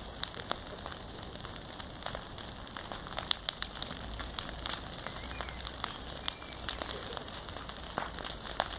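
Large wood bonfire burning, crackling with irregular sharp pops over a steady hiss; the loudest pop comes a little over three seconds in.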